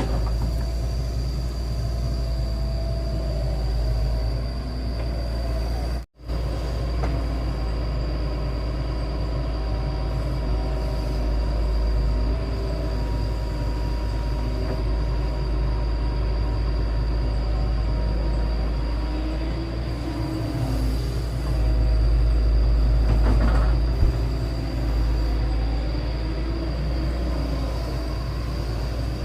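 Excavator's diesel engine running with a steady heavy low rumble, with faint metallic squeal and hydraulic whine from the machine at work.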